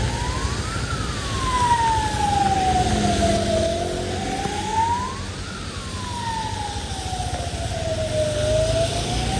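An emergency vehicle's siren wailing: the pitch climbs to a peak, then slides slowly back down, twice, with a rise starting again at the end. Low street traffic rumble underneath.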